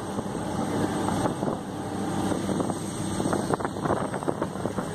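Boat under way at speed: a steady rush of engine and churning wake, with wind buffeting the microphone.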